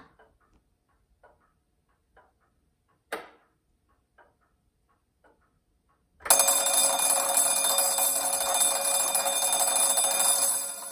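Standard Electric Time master clock ticking about once a second, one click louder than the rest. About six seconds in, an antique electric vibrating alarm bell starts ringing continuously, set off by the clock's punched-tape mechanism closing relay one. The bell rings loud for about four and a half seconds, then turns quieter right at the end.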